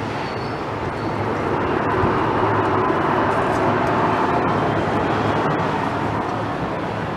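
Jet airliner passing, a steady rush of engine noise with a low hum underneath that swells about two seconds in and eases slightly toward the end.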